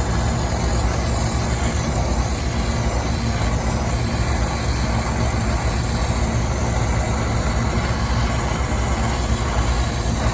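Steady roar of a brazing torch flame heating copper refrigerant line, over a constant low machinery hum.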